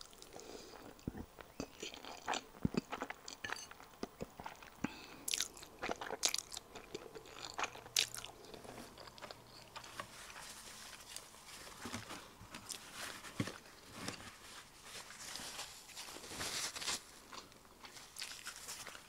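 Close-miked mouth sounds of someone eating black bean noodles (jjajang ramen): slurping, chewing and many short wet clicks.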